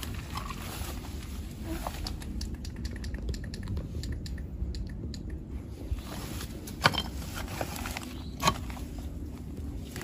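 Scattered light crackling and rustling with two sharp snaps in the second half, over a steady low rumble: footsteps through dry ground litter and undergrowth.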